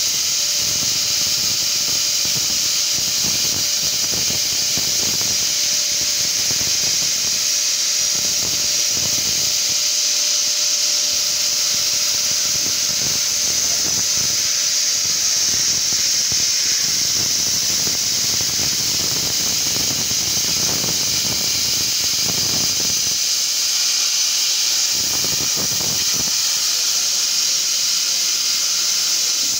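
CNC laser cutter slicing 3 mm stainless steel sheet: the assist-gas jet at the cutting nozzle makes a loud, steady, high hiss, with faint steady hum tones underneath.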